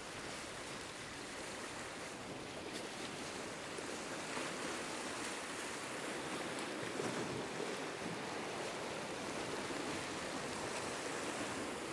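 Sea surf washing and foaming around rocks at the shoreline, a steady rush of water that swells slightly in the middle.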